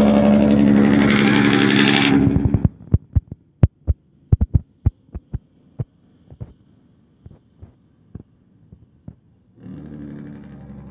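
A log-laden truck's diesel engine running loudly as it passes, cutting off sharply about two and a half seconds in. Then a string of sharp thumps, quick at first, slowing and fading over the next six seconds. Near the end another truck's engine comes in.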